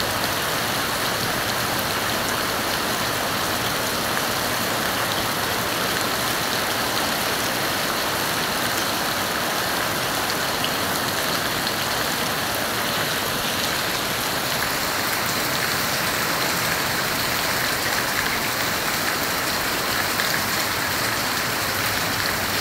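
Steady rain falling onto shallow runoff water flowing over the ground: an even, unbroken sound of many small splashes.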